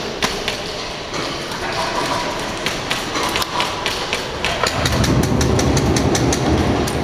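Airsoft guns firing: scattered sharp cracks, then rapid strings of shots from about two-thirds of the way in, over a low rumble of movement.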